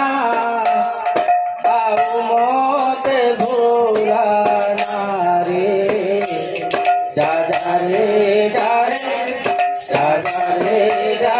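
Sambalpuri kirtan music: a devotional song sung over a steady held note, with a barrel drum played by hand and recurring bright metallic clashes.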